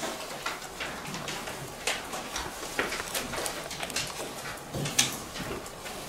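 Quiet meeting-room background with scattered small clicks and knocks, about a dozen, the sharpest about five seconds in: desk handling noises as papers and desk microphones are moved about.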